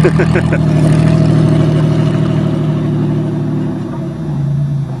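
An old Buick sedan's engine pulling steadily under throttle as the car drives off down a dirt track. Its note drops and eases slightly about four seconds in.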